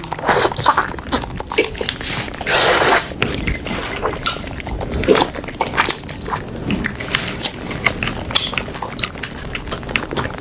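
Close-miked eating of noodle and vegetable soup: wet chewing and mouth clicks in quick irregular succession, with one loud half-second slurp about two and a half seconds in.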